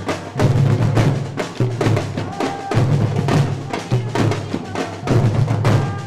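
Afro-Brazilian percussion ensemble playing a dense, steady drum rhythm, with deep bass drums under many sharp hand and stick strokes.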